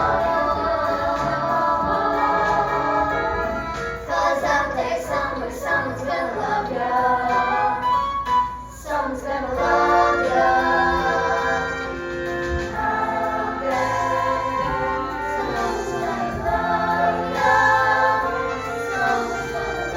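A group of voices singing a musical-theatre song in chorus over accompaniment, holding long notes.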